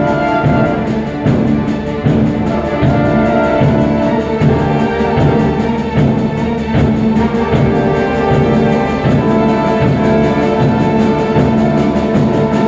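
Student symphony orchestra playing live: a full ensemble holding sustained chords over a steady, regular pulse.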